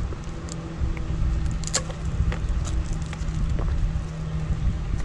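Scattered light clicks and taps as a 48-volt e-bike battery pack is handled and set against a folding bike's frame, over a steady low hum.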